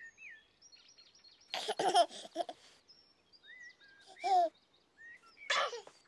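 A baby giggling in three short bursts, with birdsong chirping between the giggles.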